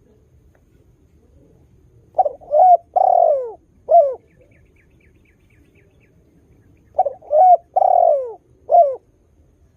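Spotted dove (tekukur) cooing: two call phrases about five seconds apart, each of four notes, two short coos, a longer falling coo and a short final one. A faint run of high ticks comes between the phrases.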